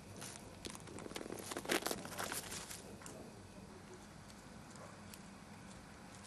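A possum biting and chewing bread: a run of crunching, crackling clicks about one to three seconds in, then only faint steady background noise.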